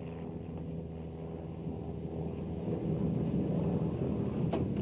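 Low vehicle-like rumble that grows louder about halfway through, over a steady low hum.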